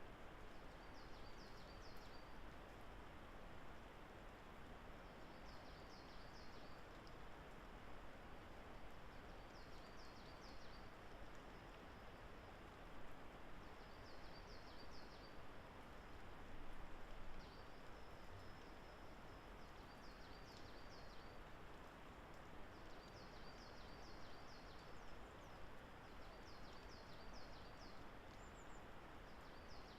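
A songbird repeating the same short, high phrase about every three to four seconds, faint over a steady background hiss of the forest.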